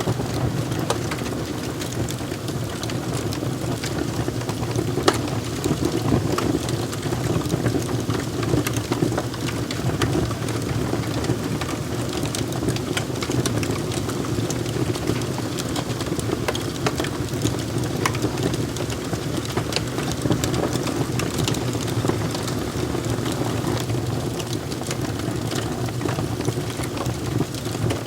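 Wood fire crackling, with frequent sharp pops and snaps over a steady low rumble of the burning fire.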